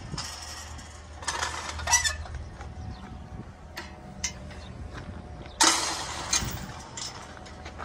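Metal clicks and rattles from a wire-mesh garden gate and its latch being handled, mixed with scuffing footsteps on dry ground. There is a noisy rattle ending in a sharp click about two seconds in and a louder sudden scrape a little past halfway.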